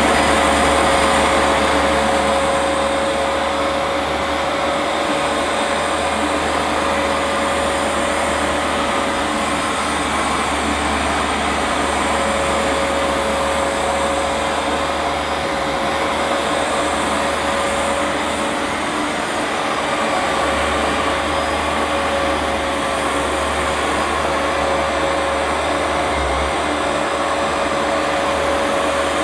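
Vax Platinum Power Max carpet washer running steadily while cleaning a carpet: a loud, even motor rush with a steady whine.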